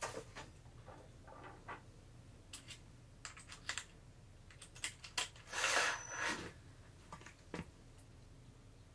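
Scattered light clicks and taps of small hardware and a cordless drill being handled while a gas-strut bracket is positioned on a cabinet, with a longer scraping rustle about six seconds in.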